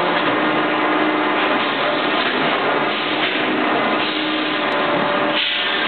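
Packaging-line machinery and conveyors running: a steady whirring hum with a faint constant tone underneath.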